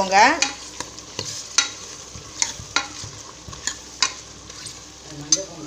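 Steel ladle stirring goat lung pieces and chopped tomato frying in a metal pressure cooker pot: a steady sizzle with scattered sharp clinks of the ladle against the pot.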